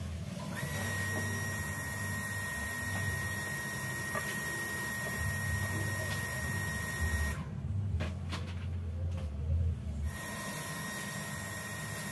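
A small electric motor running with a steady high whine and hiss. It stops abruptly about seven seconds in and starts again about ten seconds in, over low uneven handling noise.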